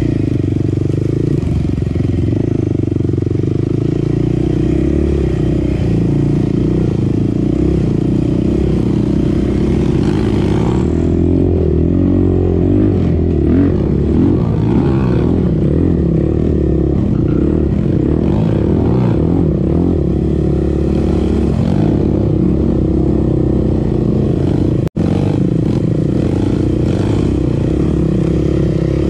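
Sport quad engine running steadily while riding, with wind and riding noise over it. The sound drops out for an instant near the end.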